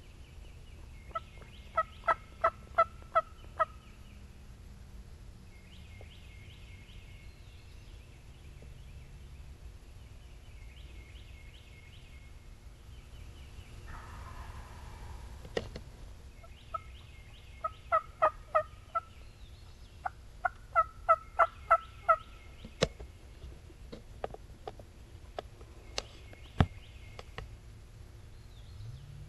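Wild turkey yelping: runs of six to eight loud, evenly spaced yelps at about three a second, three runs in all, followed by scattered single sharp clucks. Faint songbirds chirp throughout.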